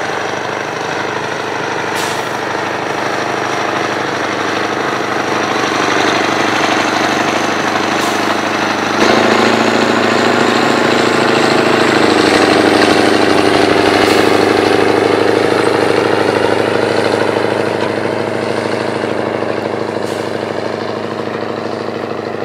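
A 450-hp Scania V8 truck engine in a rebuilt Steiger Cougar tractor, running steadily under heavy load while pulling a nine-furrow plough. It grows louder as the tractor passes, with a sudden change in tone about nine seconds in, then fades near the end.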